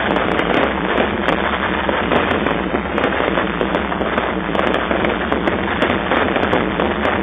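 Fireworks display in full barrage: aerial shells and crackling stars bursting so close together that the bangs merge into one unbroken din, with sharp crackles throughout.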